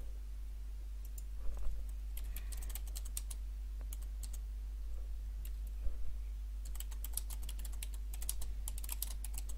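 Typing on a computer keyboard: two runs of quick keystrokes, one about two seconds in and a longer one from about seven seconds in, with a pause between. A steady low hum lies underneath.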